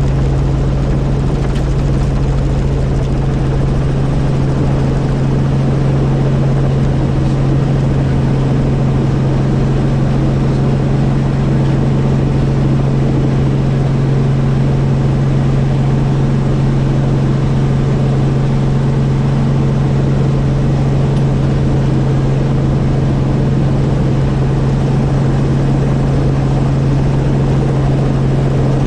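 Helicopter in flight: a loud, steady drone of rotor and engine with a strong low hum that holds unchanged throughout.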